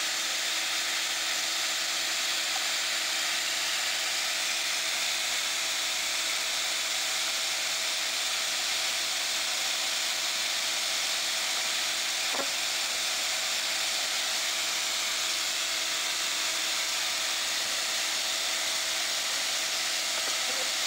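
A huge swarm of honeybees from a disturbed colony buzzing in the air all around: a steady, dense hum with a hissing edge.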